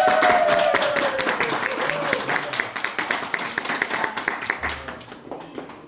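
Small group of guests applauding, with a long whoop and cheering voices at first; the clapping thins out and dies away near the end.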